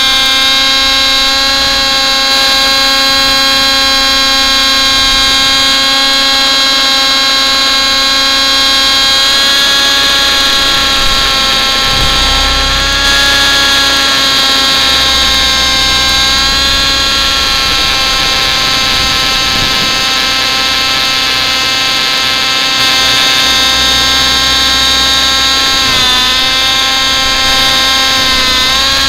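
Thunder Tiger Raptor 50 Titan RC helicopter's nitro glow engine and rotors in flight, heard close up from a camera mounted on the helicopter: a loud, steady, high-pitched whine with many overtones. Its pitch dips briefly a couple of times near the end.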